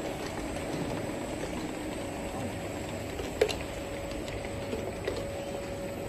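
Bottle filling and packing line running, a steady mechanical rumble from the conveyor and filling machine with a faint steady hum. A single sharp clack about halfway through.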